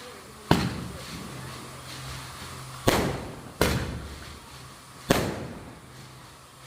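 Firecrackers going off: four sharp bangs at uneven intervals, each trailing off in an echo.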